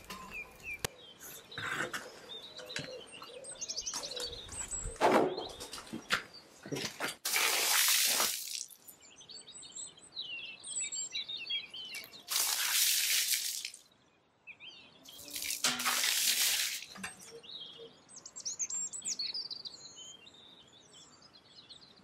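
Small birds chirping and calling throughout, broken by three loud hissing bursts of about a second each, with a few light knocks before the first.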